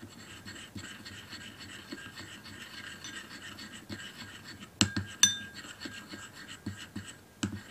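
A small metal spoon stirring thick toothpaste in a glass bowl, scraping against the bottom, with two ringing clinks of the spoon on the glass about five seconds in.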